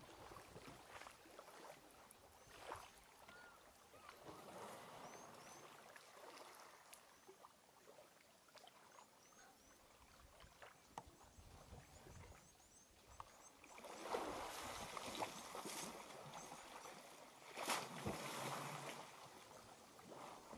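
Quiet outdoor ambience with faint high chirps in the first half. Two louder stretches of rushing noise follow, each a couple of seconds long, about two-thirds of the way in and again near the end.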